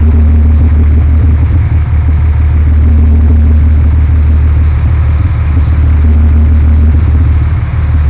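Boat engine running steadily: a loud, even low drone.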